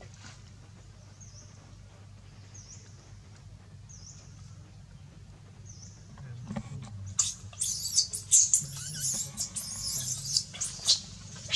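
Baby long-tailed macaque screaming in distress: a run of shrill, high-pitched squeals lasting about four seconds in the second half. Faint short chirps repeat about once a second before it.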